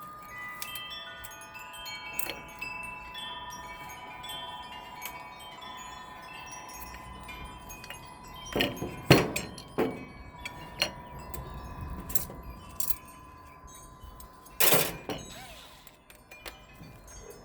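Wind chimes ringing, several overlapping tones that hang on for seconds. A few sharp knocks and clunks cut across them, the loudest about nine seconds and fifteen seconds in.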